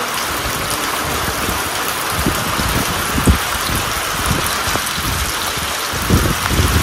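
Heavy monsoon rain falling steadily onto a lake, a dense even hiss, with irregular low rumbles underneath and a brief louder one about three seconds in.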